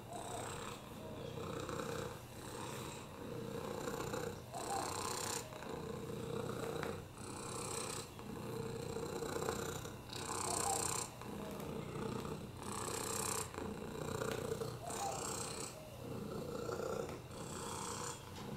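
Domestic cat purring steadily while being stroked, the purr swelling and easing with each breath, a little over a second apart.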